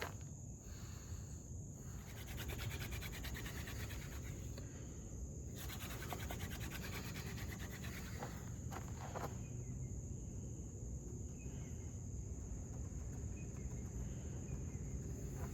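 Hand drill spindle being spun between the palms on a wooden fireboard: two spells of fast, rhythmic wood-on-wood scraping, each about three seconds long, in a friction-fire attempt. Crickets chirp steadily underneath.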